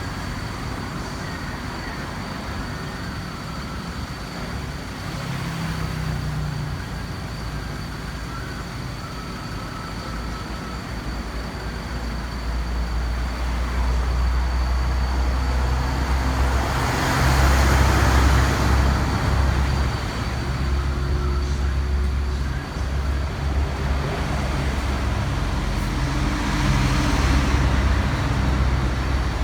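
Road traffic noise: a steady low engine rumble, with vehicles swelling past twice, the louder one around the middle and another near the end. A thin steady high tone runs underneath.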